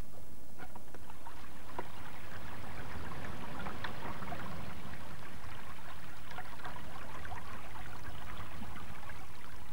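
Shallow stream running over stones, a steady trickling and splashing of water.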